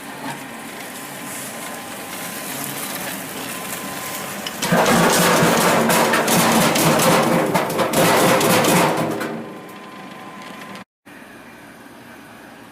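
Food dicing machine running. It gets much louder for about four seconds in the middle with a dense rapid clatter, then falls back to a quieter steady run.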